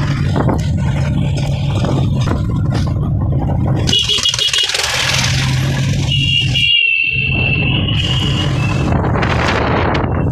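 Motorcycle engine running steadily under way, with wind noise on the microphone. About four seconds in a horn gives a short run of rapid beeps, and about two seconds later a horn sounds one long blast of over two seconds.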